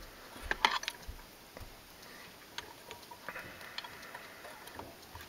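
Light clicks and taps of small metal pen-kit parts being handled and lined up on a pen press: a cluster of sharp clicks about half a second in, then a few scattered faint ticks.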